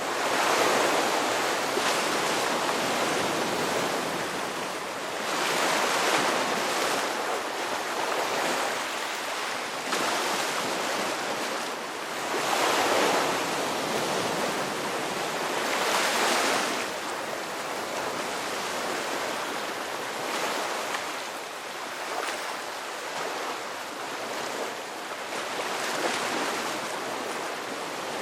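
Ocean surf: waves breaking and washing up the shore, swelling and falling back in surges every few seconds, the loudest near the start and around six, thirteen and sixteen seconds in.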